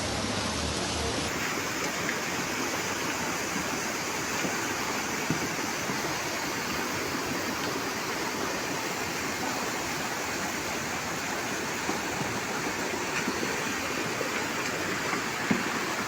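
Fast-flowing floodwater rushing steadily, an even, unbroken noise of running water.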